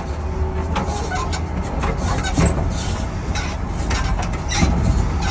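Scania bus on the move: a steady low running rumble with scattered knocks and rattles, the suspension noise that is being tracked down.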